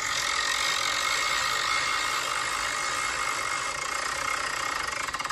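Spinner-wheel app on a phone ticking rapidly as the wheel spins, the ticks spacing out and stopping at the end as the wheel comes to rest.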